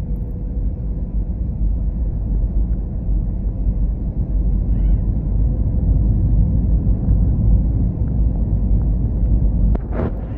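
Airbus A320 making a steady low rumble, with a faint steady hum above it.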